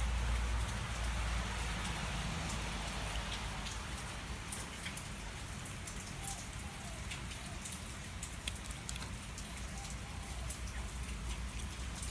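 Steady even hiss with scattered faint ticks and a low hum underneath.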